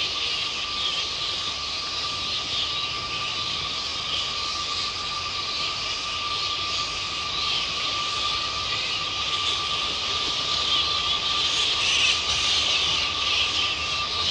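A roosting colony of fruit bats squabbling: a dense, continuous high-pitched chatter of many overlapping calls over a thin steady tone, growing a little louder near the end.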